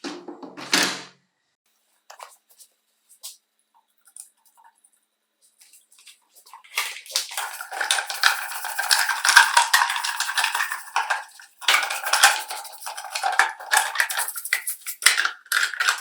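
A short clatter of small metal parts, then a few scattered clicks. From about six and a half seconds in there is dense, rapid metallic scraping that goes on without a break.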